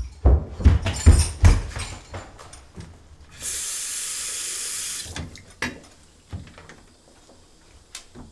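Heavy footsteps on a hard floor. Then a tap runs briefly as an even rush of water, about a second and a half long, that starts and stops abruptly. A few light clicks and knocks follow.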